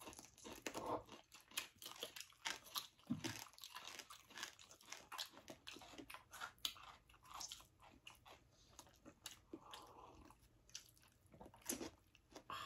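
Quiet, close-up chewing of a mouthful of salted ba khía crab and fresh leafy greens, with many small irregular clicks and crackles.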